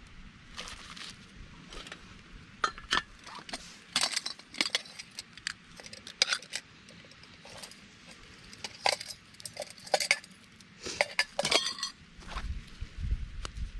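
Metal camp cookware being unpacked and handled: a nested bush pot, lid and small kettle clinking against each other and being set down, in many light, irregular metal-on-metal clinks and rattles.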